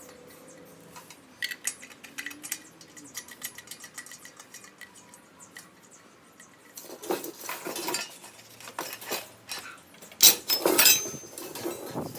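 Metal clinking and clattering of steel lug nuts being handled and put on the wheel studs, in scattered light clicks at first, then louder clatter about seven seconds in and again about ten seconds in.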